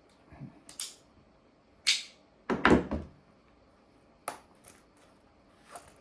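Metal multi-tools being handled and set down on a hard surface: a series of sharp clicks, with a heavier clack about halfway through.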